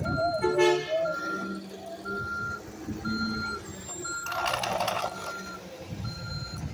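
Automated side-loader garbage truck's reversing alarm beeping about once a second as it backs up, over the rumble of its engine. A brief sharp sound comes just under a second in, and a short hiss about four and a half seconds in.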